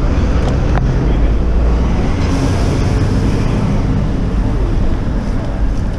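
Steady low rumble of wind and rolling noise on a handlebar-mounted action camera as a bicycle rides over paving slabs, with one sharp click about a second in.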